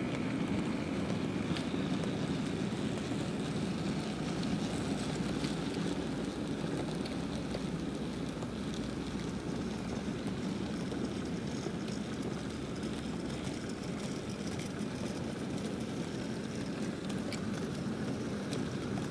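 Steady running noise of a model railway wagon rolling along the track, picked up by a camera riding on the wagon, with faint scattered clicks.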